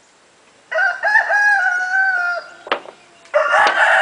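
Rooster crowing: one long held crow starting just under a second in, then another, rougher call begins near the end.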